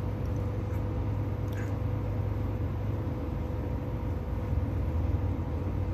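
A steady low mechanical rumble with a constant hum, and a faint click about a second and a half in.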